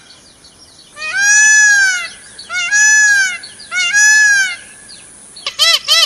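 Indian peafowl (peacock) calling: three loud, drawn-out calls, each rising and falling in pitch, the first the longest. Near the end a quick run of shorter calls begins.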